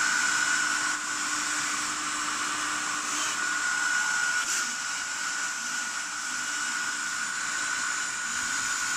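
Mini RC hovercraft's small brushless motors (Mamba 1105 5500kv) spinning 2-inch Gemfan propellers at a steady speed: a high, steady whine over a fan-like rush of air.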